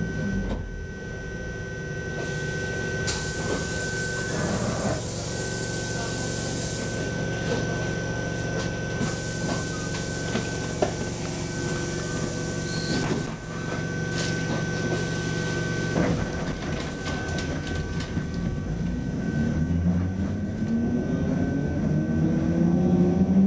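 Inside a Lidingöbanan A30B tram: a steady electric hum with a high whine, patches of hiss and a few rattles. Over the last few seconds the traction motors' whine rises in pitch as the tram picks up speed.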